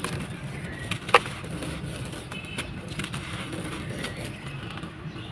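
Gritty sand-cement balls crumbling and crunching in a tub: a scatter of sharp crackles, with one loud snap about a second in, over a steady low rumble.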